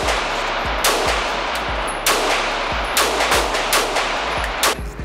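Handgun shots fired in an indoor range, about seven at an uneven pace with some in quick succession, each echoing briefly off the range walls.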